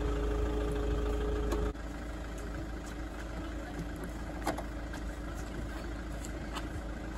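Car engine and road noise: a steady low rumble with a faint hum, dropping abruptly to a quieter level about two seconds in.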